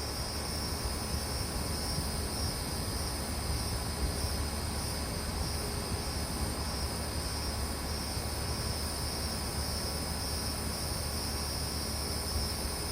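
Outdoor unit of a Carrier Comfort 25HCE4 2-ton heat pump running steadily in cooling mode: its Copeland scroll compressor's low hum under the even rush of the condenser fan. A high, steady insect trill sits in the background.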